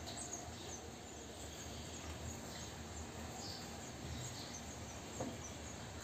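Several short, faint, high chirps of house sparrows over steady low background noise.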